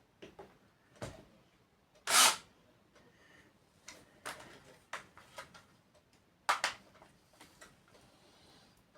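Handling sounds from small parts and tools: scattered clicks and knocks, the loudest a short rough scrape about two seconds in.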